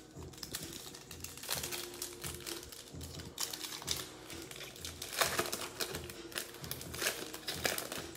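Mosaic football card pack wrapper crinkling in irregular bursts as it is torn open and the cards are pulled out.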